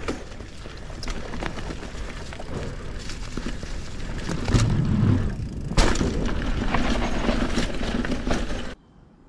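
Mountain bike riding fast down a dirt trail: a steady rush of wind on the microphone, with tyre noise and the bike's chain and frame rattling. There is a loud hit about six seconds in. The sound cuts off abruptly near the end.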